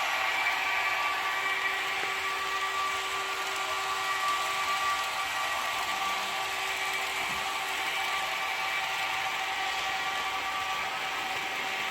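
Piko model Vectron electric locomotive running, its ESU LokSound 4.0 decoder playing a steady electric-locomotive whine and hum: several steady tones over a hiss, easing off a little towards the end.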